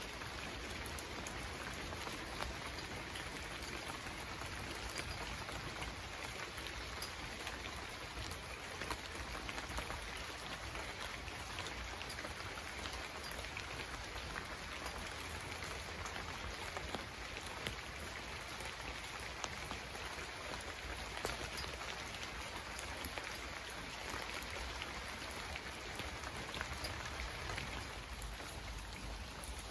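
Steady rain falling, a constant hiss with many sharp ticks of single drops.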